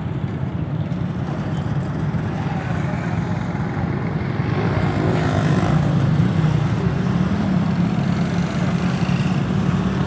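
Road traffic: the steady drone of passing motorcycles and motorcycle rickshaws, growing louder about five seconds in as one passes.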